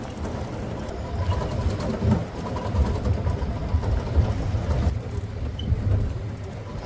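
Vehicle engine running with a steady low rumble from the ride, heard from on board.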